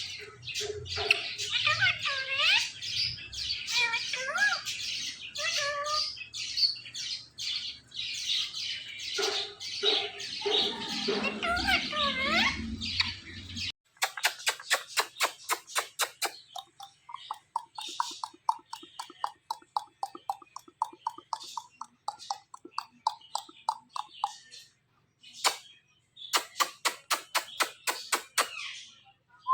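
Ring-necked parakeet chattering with quick chirps and rising and falling whistles. About fourteen seconds in the sound changes abruptly to fast runs of short clicking chirps, broken by brief pauses.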